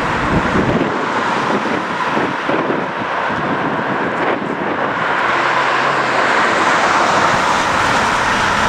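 Four-engined Airbus A380 airliner's jet engines roaring as it takes off and climbs out, a steady rushing noise.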